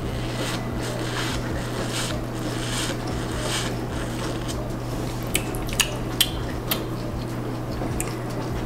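Milk being sucked up through a cereal straw, with soft slurping swells in the first few seconds, then a few sharp crunchy clicks a little past the middle.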